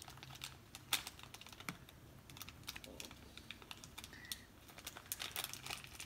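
Faint, scattered clicks and taps from the touchpad of a Dell Inspiron 15 5000 2-in-1 (5582) laptop as a finger presses and moves on it, the sharpest click about a second in and a few more near the end.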